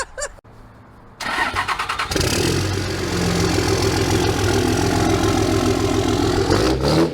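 A car's 1.8T turbocharged four-cylinder engine cranks for about a second, catches and runs steadily, then drops back sharply near the end.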